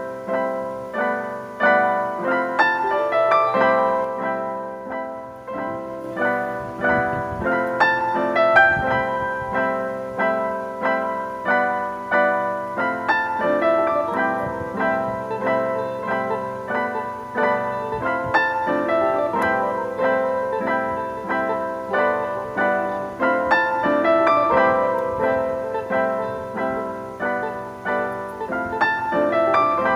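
Background piano music: a steady run of single struck notes throughout.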